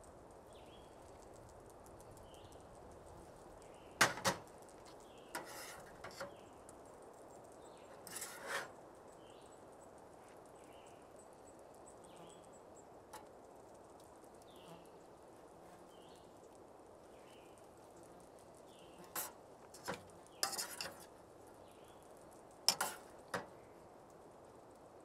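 Metal spoon clinking and scraping against a small metal cooking pot as chili is ladled out onto burgers: scattered sharp taps and short scrapes, several close together about four seconds in and again near the end.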